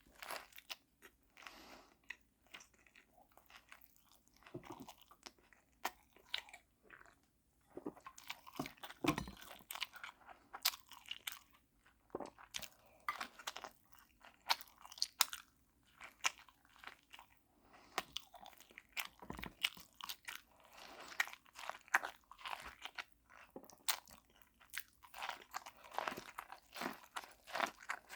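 A person eating close to the microphone: biting and chewing food with irregular wet mouth clicks, several a second, and short pauses between.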